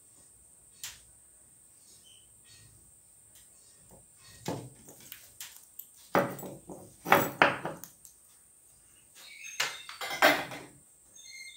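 Handling noise of a plastic LED bulb and a soldering iron on a wooden workbench: scattered knocks and rattles, loudest in clusters about six to eight seconds in and again around ten seconds, when the iron is put back in its stand. A bird chirps faintly a couple of times.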